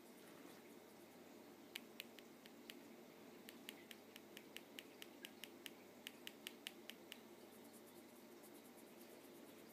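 Maine Coon kitten grooming its fur: faint, quick clicking, about five clicks a second, starting about two seconds in and stopping about seven seconds in, with a short pause near the three-second mark.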